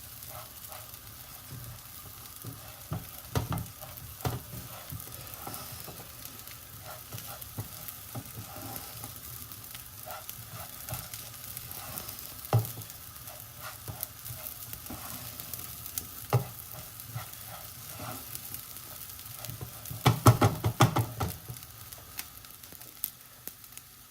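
Rice frying and sizzling in hot fat while a spoon stirs and scrapes it, with scattered clicks and a flurry of louder knocks about twenty seconds in. The grains are being toasted until translucent before water is added.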